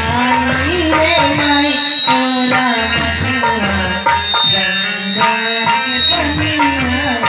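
Live folk stage music: a harmonium playing a sustained melody over a steady rhythm of hand-drum strokes.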